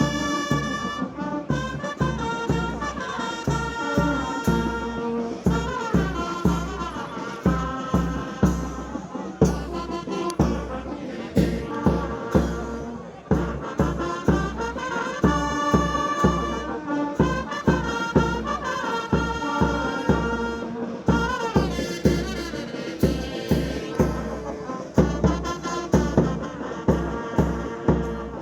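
Music with a brass melody over a steady, fast drum beat.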